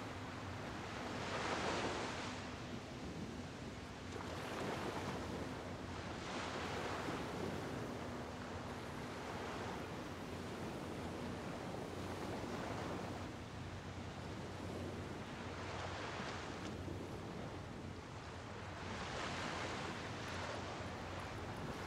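Small bay waves washing onto the shore, a soft surge every few seconds, over a steady low hum.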